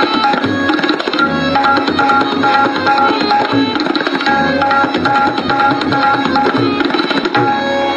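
Tabla solo in teen taal: fast, dense strokes on the tabla pair over a lehra, a short melodic phrase repeated in a steady loop.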